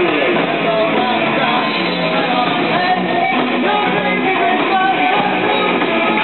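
Live rock band playing at full volume: electric guitar, bass guitar and drums, with a woman singing lead. The sound comes from an audience camera's microphone, cut off above about 4 kHz.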